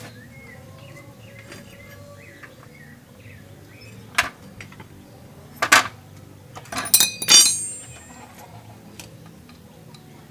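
Sharp metal clinks and knocks as a wrench and the rear axle are worked into a motorcycle's rear wheel: two single strikes, then a loud quick cluster about seven seconds in with a short metallic ring. Birds chirp faintly in the background.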